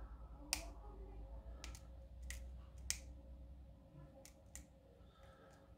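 Faint, irregular small metallic clicks of a lock pick working the pins of an American Series 200 padlock under tension, about ten over a few seconds.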